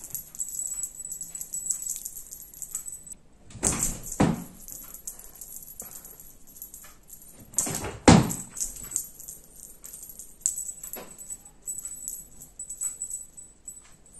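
Small bell on a feather wand cat toy jingling as a cat bats and grabs at it, with two louder knocks about 4 and 8 seconds in.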